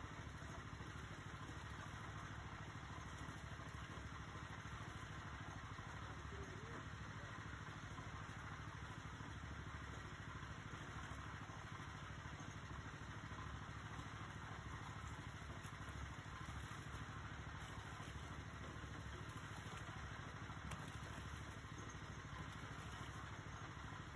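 Engine running steadily at an unchanging speed.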